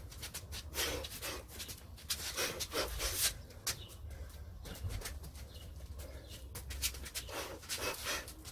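Short, irregular puffs of breath forced out with the punches of shadowboxing, mixed with shoe scuffs and steps on patio tiles, over a low steady rumble.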